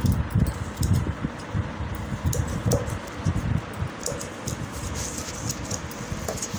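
Large steel tailor's shears cutting cloth, with repeated snips and clicks of the blades, the fabric rustling, and irregular low knocks as the shears and cloth are handled on the table.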